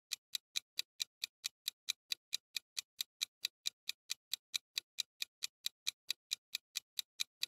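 Clock-ticking sound effect of a quiz countdown timer: short, sharp, evenly spaced ticks, about four and a half a second, at a steady level.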